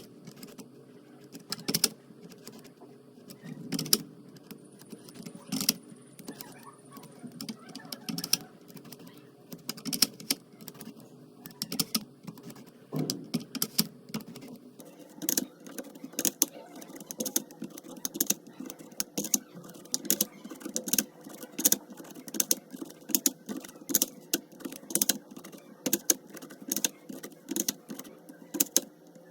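Spirograph drawing: a pen tracing on paper as the plastic gear is turned around its ring, giving irregular clicks and ticks over a soft scratching. The clicks come faster and more evenly from about halfway through.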